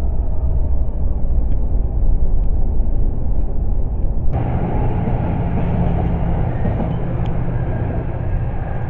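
Steady low road rumble inside a moving car running alongside a freight train. About four seconds in, it cuts to a steady low engine hum and rail noise from a bi-level commuter train approaching a station platform.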